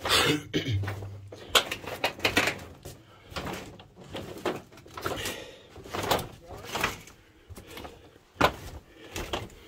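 Scrambling footsteps over a pile of loose PVC pipes on rocky ground: irregular hollow knocks, scrapes and clatters as the pipes shift underfoot.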